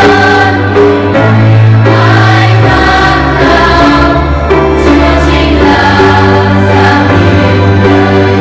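Children's choir singing a Vietnamese Catholic hymn in unison and parts, over held low bass notes that change every second or two.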